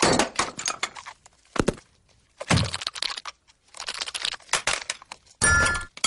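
Small hard objects dropped one after another, clattering onto a hard floor in five or six separate bursts. The last burst has a brief ringing note, about five and a half seconds in.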